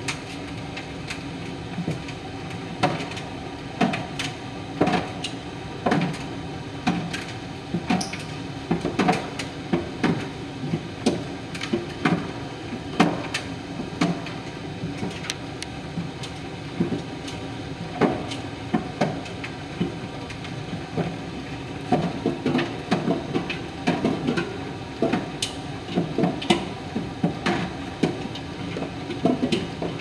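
Miele PT 5136 tumble dryer running a drying cycle: a steady hum from the motor and fan, with irregular knocks and thumps a few times a second as the laundry tumbles in the rotating drum.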